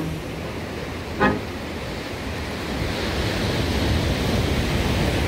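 Sea surf washing steadily, growing a little louder after a couple of seconds.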